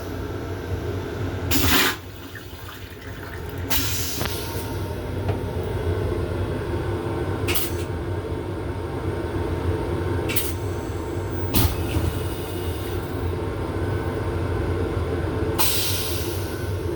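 Long Island Rail Road M7 electric railcar rumbling steadily in motion, heard from inside its restroom, with several short, sharp rushing or hissing noises spread through it.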